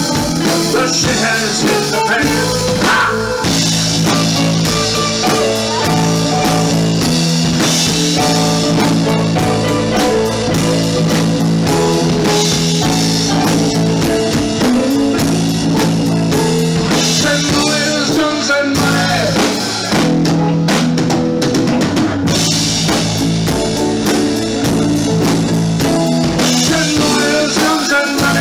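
Live rock band playing: drum kit, electric bass, electric guitars and keyboard together in a steady, continuous groove.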